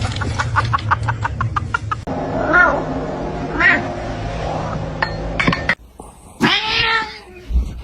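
Domestic cat meowing: a few short meows, then one loud drawn-out meow near the end. It opens with a quick run of regular ticks, about five a second.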